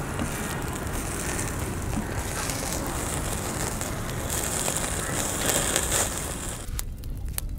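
Vegetable kebabs sizzling over a charcoal grill: a steady crackling hiss that drops away briefly near the end.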